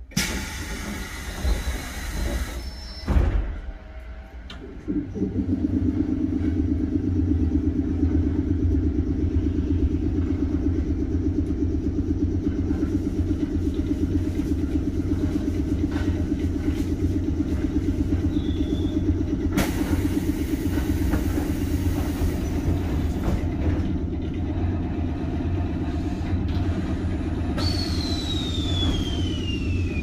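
Inside a 719 series 5000-subseries electric train car: the sliding doors open and later close, with a heavy thump about three seconds in and a few seconds of hiss past the middle. Under this the train's equipment drones steadily from about five seconds in, and a whistle falls in pitch near the end.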